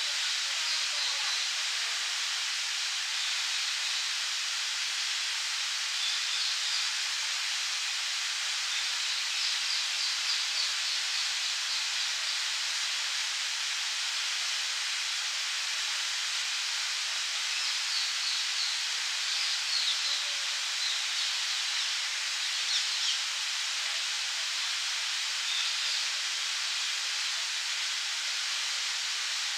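Fountain jet spraying up and splashing back into a pond basin: a steady rush of falling water. Small birds chirp now and then over it, in short bursts.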